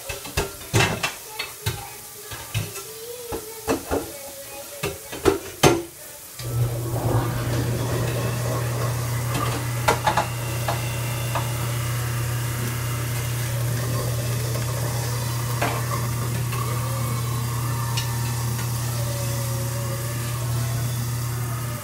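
A utensil knocking and scraping repeatedly against a pan of frying food for the first six seconds. Then a steady frying sizzle with a low steady hum underneath takes over.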